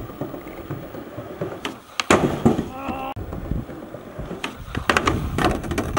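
Footsteps and knocks on the metal roof of a train car: scattered sharp knocks over a steady low rumble, the loudest about two seconds in.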